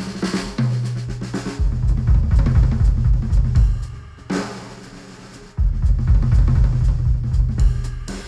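Drum-heavy music with a deep bass line, played through a Sennheiser open-back headphone and picked up by microphones at the earcup. The beat drops to a quieter passage about four seconds in, then comes back in full with kick, snare and bass a second and a half later.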